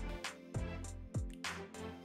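Background music with a steady beat: a deep kick drum about every half second under sustained instrumental tones and light cymbal ticks.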